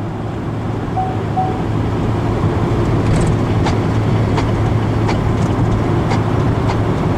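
Inside the cabin of a moving car: steady road and engine hum, with a few faint light clicks from about three seconds in.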